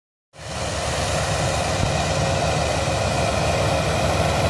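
Diesel tractor engine running steadily while ploughing, fading in about a third of a second in.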